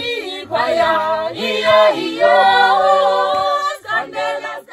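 A cappella vocal music: several voices singing together in harmony, with long held notes.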